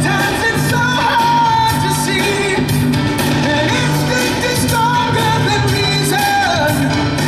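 A song with a sung vocal line over a steady beat.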